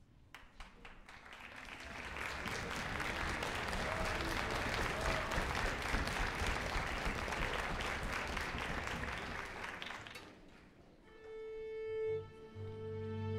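Audience applauding, building over the first couple of seconds and dying away after about ten seconds. Then a string orchestra begins playing long held chords, a low bass note under higher sustained notes.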